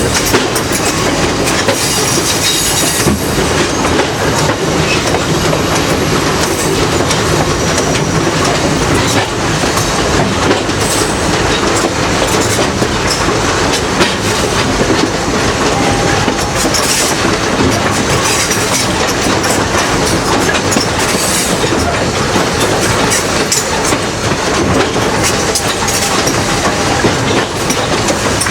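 A railroad passenger coach rolling along the track: steady running noise with wheels clicking over rail joints and brief high-pitched wheel squeals near the start and twice later on.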